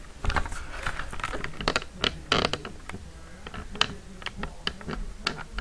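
Irregular clicks, taps and rustling of objects being handled close to the microphone, busiest in the first half.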